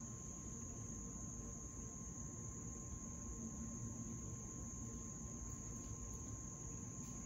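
A steady, high-pitched chorus of crickets or similar insects trilling without a break, over faint woodland background noise.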